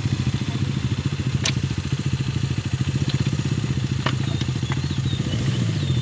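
Motorcycle engine idling steadily, with a few faint light clicks over it.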